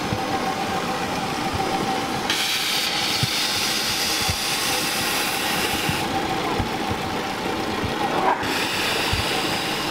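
A miniature ride-on steam road engine running under way. Its steam hisses loudly in a long stretch from about two seconds in and again near the end, over scattered low knocks.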